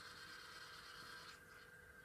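Near silence: room tone with a faint steady high hum.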